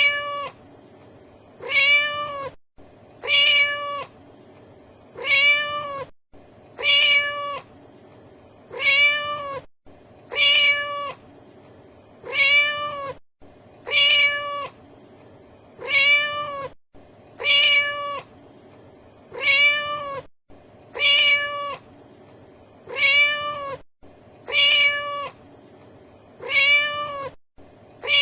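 Domestic cat meowing: the same meow, rising then falling in pitch, repeats at a steady rhythm about every second and three quarters, as a looped sound effect.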